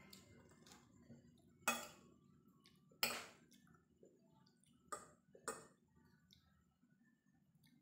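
Metal fork and spoon clinking and scraping against a ceramic plate while eating: four sharp clinks, the loudest about three seconds in, with a brief ring after it.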